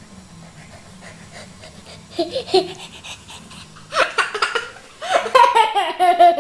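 A toddler laughing hard in high-pitched bursts from about four seconds in, after a short vocal sound about two seconds in.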